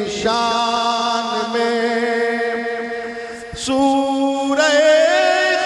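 A man singing a line of Urdu devotional verse (manqabat) in long, drawn-out held notes. The sung line breaks briefly about three and a half seconds in, then comes back on a higher held note.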